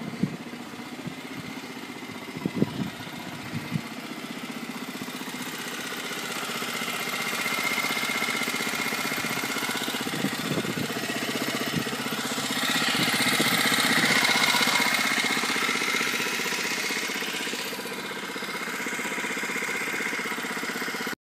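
Small engine of a miniature Porsche 911 Carrera replica car running steadily at idle, growing louder twice, with a few knocks in the first few seconds, then cutting off abruptly.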